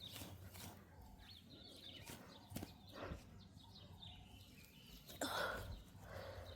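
Faint, scattered scrapes and rustles of garden soil being dug through while searching for potatoes.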